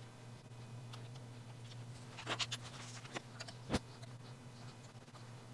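Light clicks and small rattles of hand-handled metal parts as the proximity sensor and its cable are taken off a CNC gantry's aluminium side plate, with one sharper knock just after the middle. A steady low hum runs underneath.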